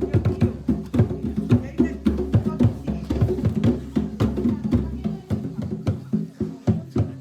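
Music with a busy percussive beat of quick, sharp strokes over low pitched tones.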